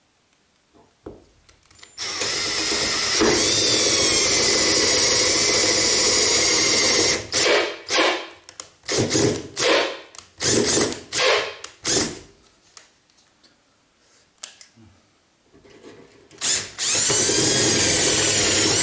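Cordless drill boring through the car's bodywork to enlarge the spoiler mounting holes: one steady run of about five seconds, then a series of short trigger pulses, then another run near the end whose whine drops and climbs again as the bit bites.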